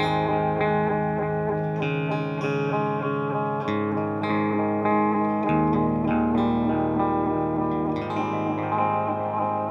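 Electric guitar played through a Smiletone Flying Monkey digital modulating delay pedal: picked chords ringing on with effect repeats, the chord changing about every two seconds.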